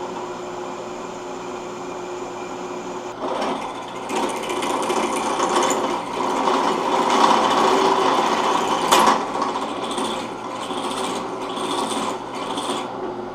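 Electric drill motor running with its bit cutting through a steel nut. It starts as a steady hum, then turns into scratchy grinding as the bit bites into the metal, with a sharp crack about nine seconds in and pulsing surges near the end.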